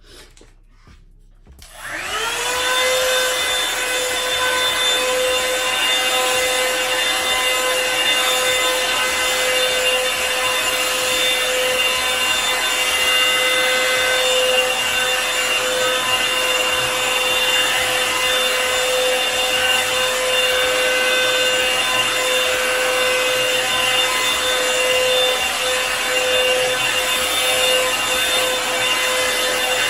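Revlon One-Step hair dryer brush switched on about two seconds in: its fan motor spins up quickly to a steady whine over rushing air, then runs evenly.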